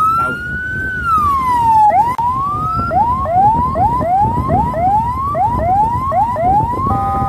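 Electronic siren on a convoy escort vehicle, over road and engine noise. It makes one slow rise and fall, then switches to quick rising whoops about two a second. A short steady two-tone horn blast sounds near the end.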